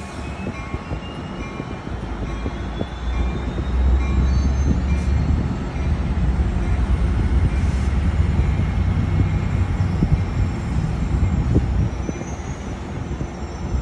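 Sounder commuter train's diesel locomotive moving slowly through the station. Its engine drone grows louder about four seconds in, with a faint whine rising in pitch over the first several seconds.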